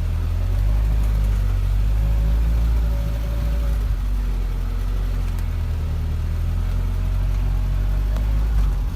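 UAZ off-roader's engine running with a steady low rumble.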